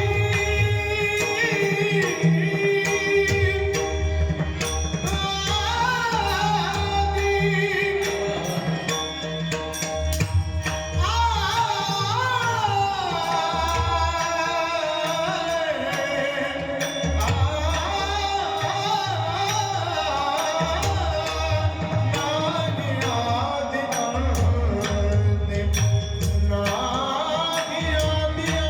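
A devotional Marathi abhang sung with long, ornamented gliding notes over a steady drum rhythm.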